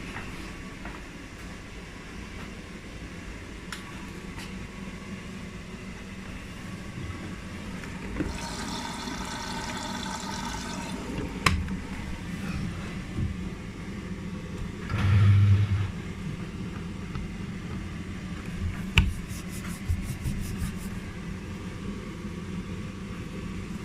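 Beko 8 kg washing machine running a short wash cycle: water rushing through the drum over a steady hum, with a few clicks and a short low thud about fifteen seconds in.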